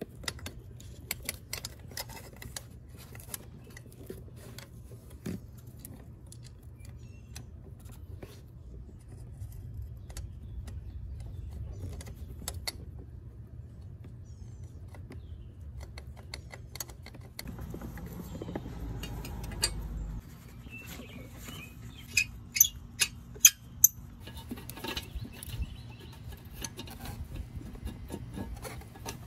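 Hand tools and loose metal parts clicking and clinking while a sensor bracket is unbolted in an engine bay, in scattered bursts, with a few sharp, loud metallic clinks about two-thirds of the way through, over a steady low hum.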